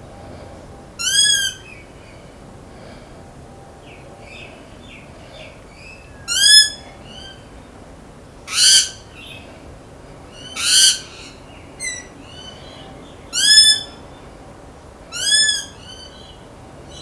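Rainbow lorikeet calling: about seven short, high calls spaced a second or two apart. Most have a clear pitch that rises and falls, and two in the middle are harsher screeches.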